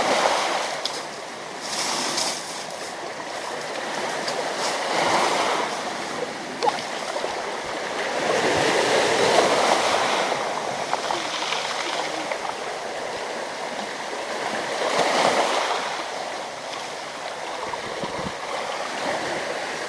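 Black Sea waves washing onto the shore, the noise of the surf swelling and ebbing every few seconds.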